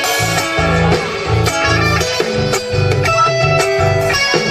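Instrumental break in an Argentine folk song: guitars play a melody over a steady, pulsing bass line.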